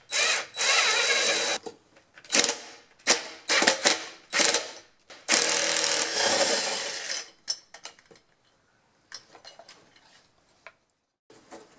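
Cordless driver spinning out the muffler bolts on a two-stroke leaf blower engine: a run of about a second and a half, several short bursts, then a longer run of about two seconds. Light clicks of parts being handled follow as the muffler comes off.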